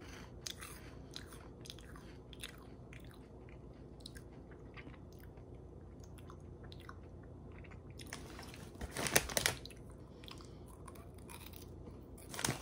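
Crunchy corn puff balls being chewed, a run of small crisp crunches with a louder burst of noise about nine seconds in.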